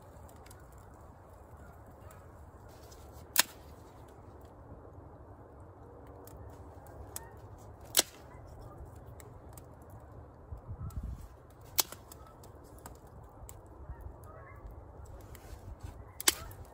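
Small campfire of dry sticks crackling faintly, with four sharp, loud pops spread irregularly through it as the wood burns. A short low rumble of handling partway through.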